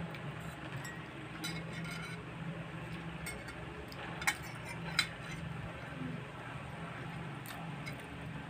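Forks clinking on ceramic plates while eating, with two sharp clinks about four and five seconds in, over a low steady hum.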